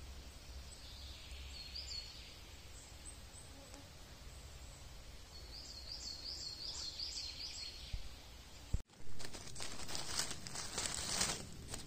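Small songbird calling faintly, with a quick run of about six high repeated notes midway. From about nine seconds in, dry fallen leaves rustle and crackle loudly as a hand digs through the leaf litter.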